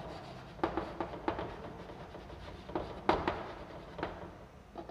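Chalk on a blackboard as words are written: a handful of short, sharp taps at uneven intervals, with faint scraping between them.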